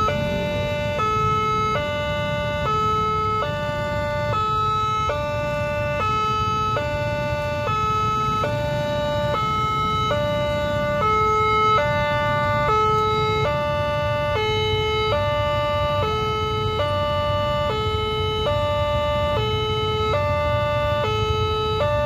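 Railway level-crossing warning alarm sounding an electronic two-tone chime, switching between its two tones about every 0.8 seconds without a break: the signal that a train is approaching and the crossing is closed. A low rumble of waiting motorcycles and road traffic runs underneath.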